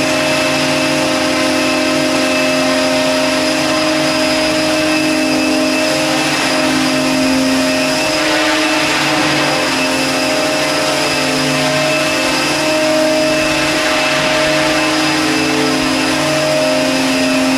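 Radio-controlled helicopter with an MD 500E scale body, its motor and main rotor running at a steady hum with a high whine as it lifts off and hovers, the pitch shifting a little now and then as the pilot holds it in the air.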